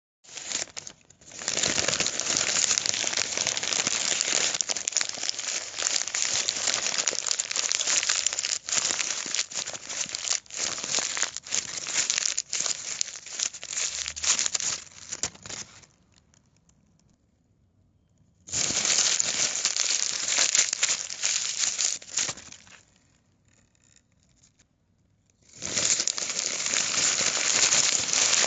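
Sheet of paper being crumpled by hand, a dense crackling and crinkling in three long stretches: one of about fifteen seconds, a shorter one of about four seconds, then another starting near the end, with quiet pauses between them.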